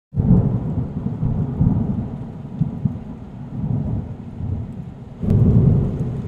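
Thunder sound effect on an intro title card. A low rolling rumble starts abruptly and slowly fades, then a second loud peal breaks in suddenly about five seconds in.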